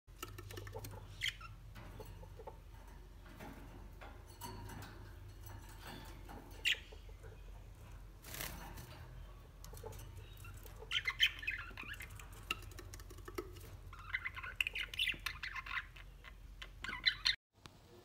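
Budgerigars chirping and chattering, with quiet chirps at first and lively bursts about eleven seconds in and again from about fourteen seconds. Under them runs a steady low hum, with scattered small clicks.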